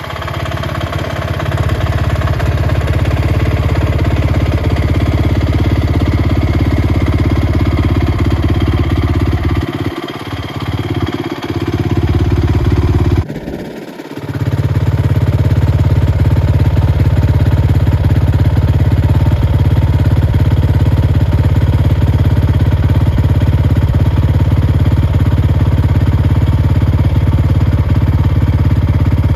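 Honda TRX450 quad's single-cylinder four-stroke engine running loud and steady. It eases off briefly about ten seconds in, breaks off suddenly a little under halfway through, and picks up again a second later.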